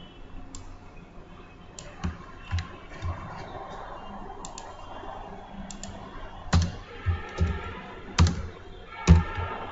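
Computer mouse and keyboard clicks, a dozen or so sharp clicks at irregular spacing, the loudest in the last few seconds, over a faint steady hiss.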